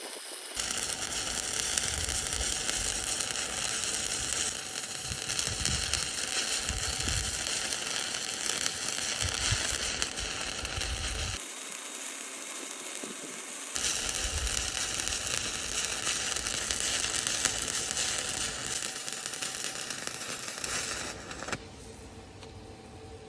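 Stick-welding arc burning a 7018 rod: a steady, dense hiss that starts about half a second in, changes tone briefly in the middle, and stops abruptly near the end.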